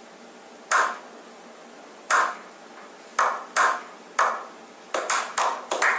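Finger snaps, a few at first spaced about a second apart, then coming quicker and overlapping near the end, each ringing briefly.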